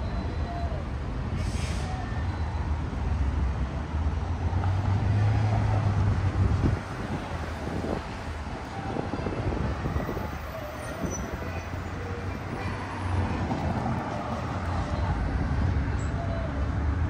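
Street traffic noise: a steady low rumble of passing vehicles, heaviest a few seconds in and easing off about seven seconds in.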